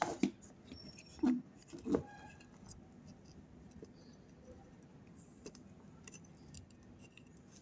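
Handling noise from a circuit board being moved and set down on a workbench: a few short knocks and rattles in the first two seconds, then faint scattered clicks.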